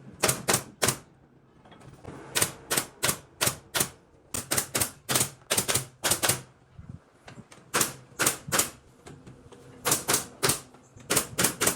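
Pneumatic nail gun firing sharp clacks into wooden ceiling boards, in quick runs of three to nine shots a few per second with short pauses between the runs.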